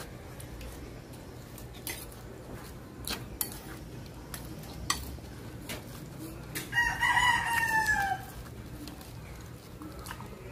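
A rooster crowing once, about two-thirds of the way in: a call of about a second and a half that drops in pitch at the end. A few light clicks and taps come before it.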